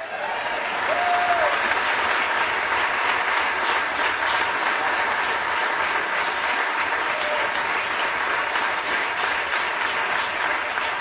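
Large audience applauding steadily: a dense wash of clapping that starts abruptly and holds throughout.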